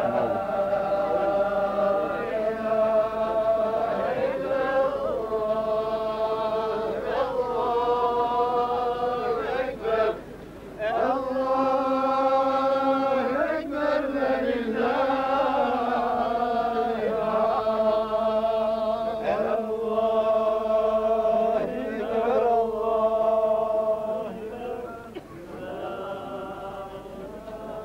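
A group of men chanting together in unison in long, held, melodic notes: an Islamic religious chant sung in procession. It breaks off briefly about ten seconds in and grows quieter near the end.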